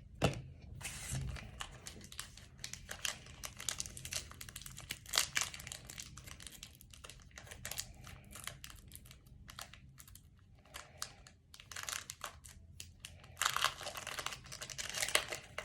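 Foil wrapper of a trading-card pack crinkling and tearing as it is handled and opened, in many short crackles, thickest about two seconds before the end.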